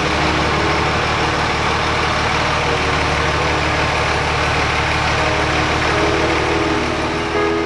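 Dodge Ram 2500's 5.9 Cummins inline-six turbo diesel idling steadily.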